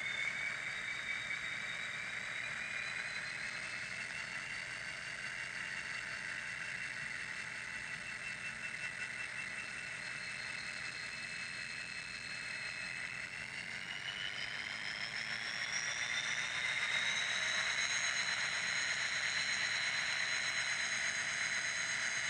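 Simulated diesel locomotive engine sound from the ESU sound decoder in an N-scale Kato F40PH model, played through its tiny speaker. It runs steadily with a thin whine that rises in pitch in steps, most clearly about 13 to 17 seconds in, where it also grows a little louder as the engine revs up.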